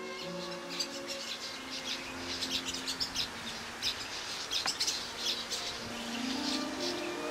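Small birds chirping and twittering in quick, high, repeated notes.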